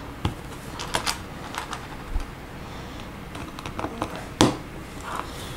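Small plastic LEGO pieces clicking and tapping as reverse slope bricks are pressed onto a small build by hand, with one sharper click about four seconds in.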